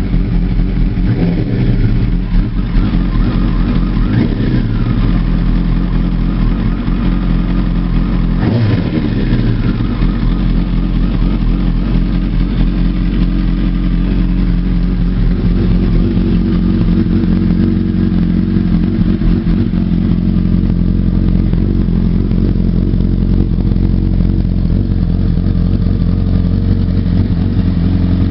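2006 Kawasaki Ninja ZX-10R's inline-four engine running in neutral. It is revved up and back down a few times in the first ten seconds, the biggest rev about eight seconds in, then settles into a steady idle.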